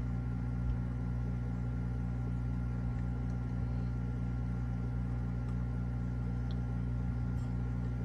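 Steady low mechanical hum of running aquarium equipment, with a faint regular pulsing in it.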